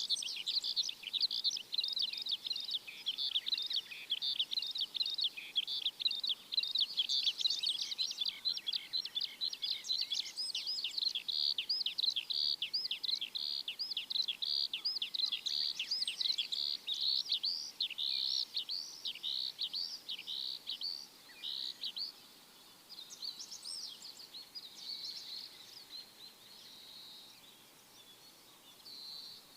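Many small birds chirping, a dense chatter of quick high notes that thins to scattered calls after about twenty seconds.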